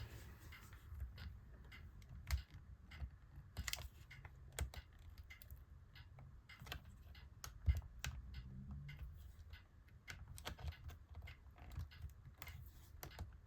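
Scattered small clicks and taps of fingers and a tool on the plastic and metal inside an open laptop as the battery connector is fitted back into its socket. One sharper knock comes a little past halfway.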